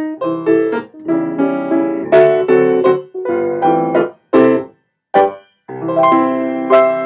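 Piano music played in short, detached phrases, with a couple of brief pauses near the middle, settling into a held chord near the end.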